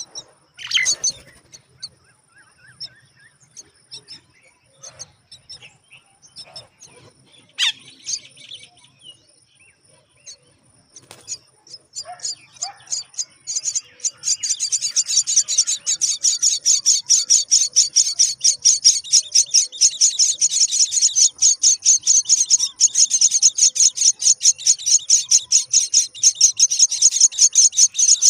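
Common myna nestlings in the nest: scattered chirps and clicks at first, then about halfway through a loud, continuous, rapid high-pitched chatter of begging calls as they are fed.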